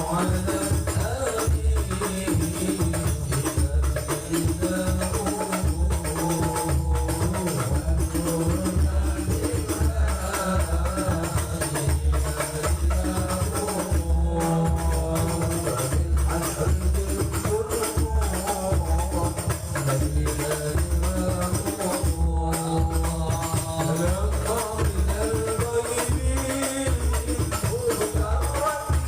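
Sholawat devotional song: a sung melodic line over a steady, repeating beat of frame drums with tambourine jingles.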